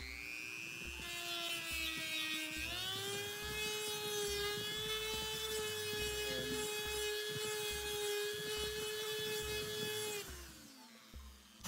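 Dremel rotary tool running at high speed with a small sanding drum against bocote wood, a steady whine. Its pitch steps up a little about a quarter of the way in, holds, then winds down near the end as the tool is switched off.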